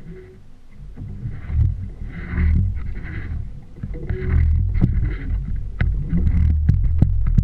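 Wind buffeting the microphone of a camera mounted on a small outboard fishing boat at sea, a low uneven rumble that grows louder about a second in, with sharp knocks and clicks coming more often toward the end.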